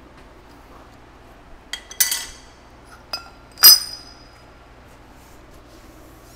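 Steel hand tools clanking on the iron table of a horizontal milling machine: a couple of light clinks, then a ringing clank about two seconds in, another tick, and a louder ringing clank near the middle, over a low steady hum.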